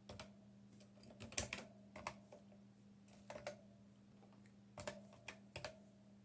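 Keys pressed on a computer keyboard: about a dozen separate clicks at irregular spacing, some in quick pairs, over a faint steady low hum.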